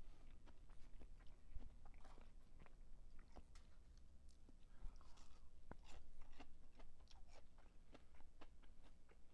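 A person chewing a mouthful of food close to the microphone: faint, irregular crunches and small wet clicks of the mouth.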